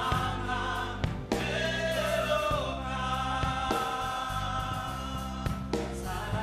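Gospel worship song sung in Lingala: a male lead singer and a choir hold long notes over instrumental backing with a steady bass line.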